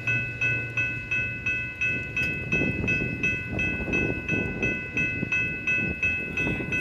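Railroad grade-crossing bell ringing steadily at just under three strikes a second. A low train rumble sits beneath it and fades away over the first two seconds.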